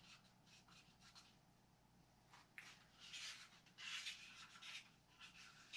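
Faint, irregular scraping strokes of a stir stick against the sides and bottom of a container of mixed epoxy resin and hardener. The stirring is slow and thorough, to blend the two fully without whipping in air bubbles.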